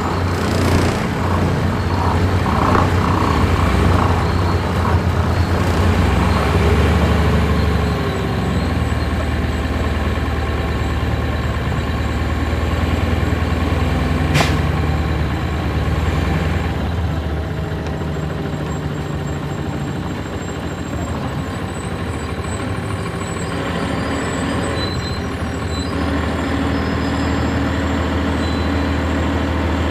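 Cabin sound on board a 1999 NovaBus RTS transit bus under way: its Cummins ISC diesel engine drones steadily. There is a single sharp click about halfway through, and the engine sound eases off a little after that.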